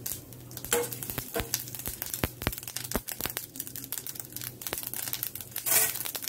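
Mustard seeds spluttering in hot oil in a steel kadai: irregular sharp pops and crackles over a light sizzle. Just before the end, a brief louder rush as urad dal is tipped into the pan.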